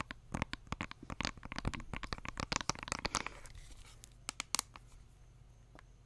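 Long fingernails tapping and scratching on a small makeup compact held close to the microphone. A quick, dense run of taps fills about the first three seconds, then only a few scattered taps follow.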